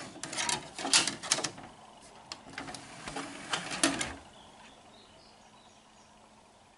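A run of clicks and clatter as a DVD goes into the Samsung home cinema's disc tray, loudest in the first second and a half and again just before four seconds in, then a faint hiss.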